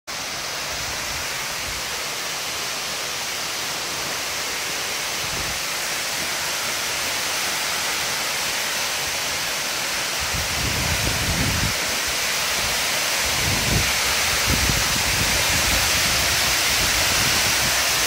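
Waterfall in a narrow rock gorge: a steady rushing hiss of falling water, growing gradually louder, with a few low thumps in the second half.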